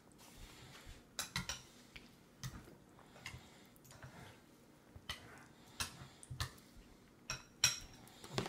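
Irregular small clicks and taps of a plastic baby spoon and fingers against a metal bowl as a toddler feeds herself, sometimes two or three in quick succession.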